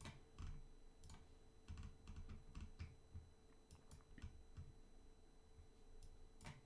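Faint, irregular clicking from computer use at a desk: single clicks and short runs of quick ticks, over a faint steady hum.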